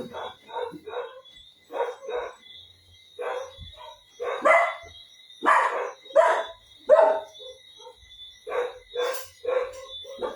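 Dogs going mad, barking in quick, irregular runs of short barks with brief pauses between the runs.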